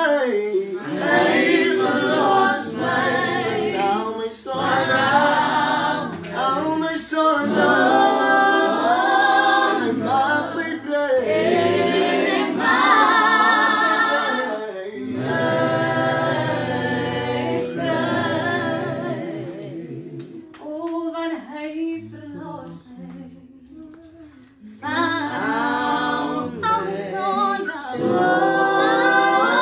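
Voices singing a gospel worship song a cappella. The singing thins and drops quieter about two-thirds of the way through, then comes back at full strength near the end.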